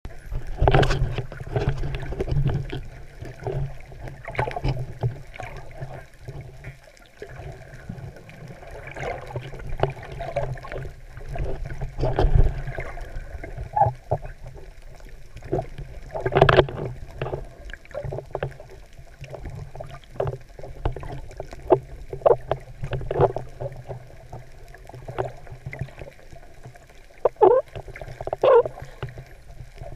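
Water sloshing and gurgling around an underwater camera as a snorkeler swims, with irregular knocks and splashes, the loudest about sixteen seconds in.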